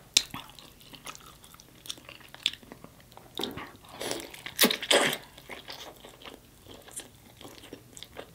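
Close-miked biting and chewing of rotisserie chicken, heard as scattered short mouth clicks and smacks. The loudest bites come about halfway through.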